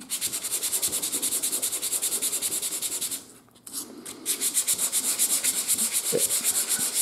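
Fast back-and-forth strokes of a sanding sponge on the face of a thin laser-cut plywood part, about five strokes a second, with a short pause a little past the middle. The face is being sanded smooth, ready to take graphite as a sliding surface.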